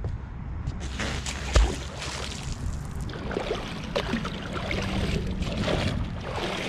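Water sloshing and splashing as a large magnet-fishing magnet, salvaged from an MRI machine, is hauled up through the water on its rope, with a single thump about a second and a half in.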